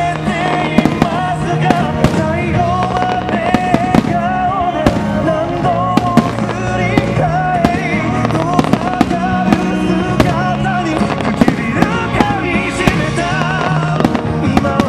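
Aerial fireworks shells bursting in rapid, irregular succession, sharp bangs throughout, over a loud song with a sung melody and steady bass playing for a display choreographed to music.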